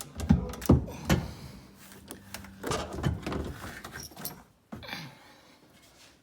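A rapid series of knocks and clanks, with a faint steady hum about two seconds in, then fewer and quieter knocks toward the end.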